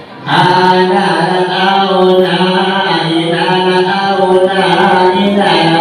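A man chanting a long melodic line into a microphone, his amplified voice holding drawn-out notes. It begins about a third of a second in.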